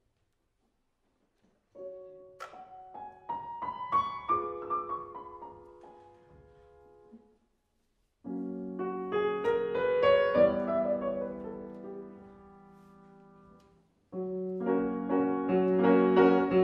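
Piano music in three passages, each starting abruptly, with short stretches of silence between the first two.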